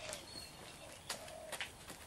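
Faint outdoor ambience with a bird giving a low call repeated about once a second, plus higher faint chirps. A few light footsteps or clicks come in the second half.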